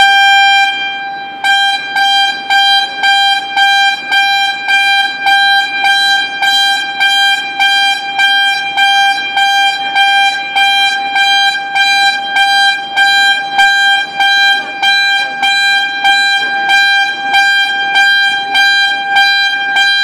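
Warning alarm horn sounding one steady pitch that pulses about twice a second, starting abruptly and continuing without a break.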